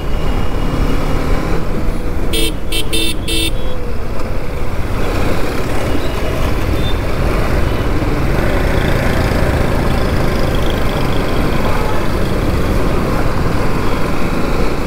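TVS Apache RR 310's single-cylinder engine running at low speed in city traffic, with steady road noise. A vehicle horn beeps four times in quick succession about two and a half seconds in.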